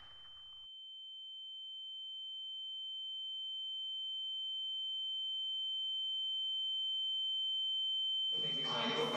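A single steady high-pitched electronic tone, the film-style ear-ringing effect after a gunshot, slowly growing louder, with a fainter lower tone beneath it. Near the end, music and voices come in.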